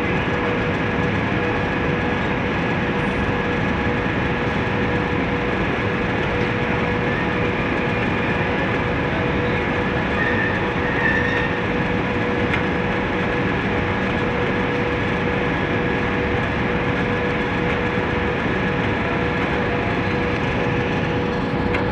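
Cement plant conveyor with material dropping from a chute onto it, running as a steady, dense rumble with a constant hum through it.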